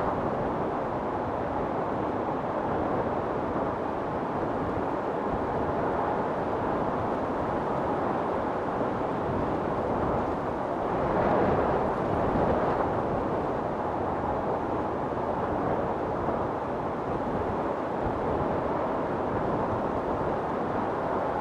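Wind storm blowing with a steady, deep roar, rising in a gust about eleven seconds in.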